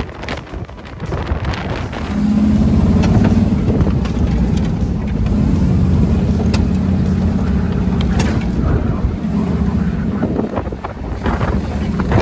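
Jeep engine running at a steady pace while driving, heard from the open-topped cab, with wind buffeting the microphone. The engine drone comes up loud about two seconds in.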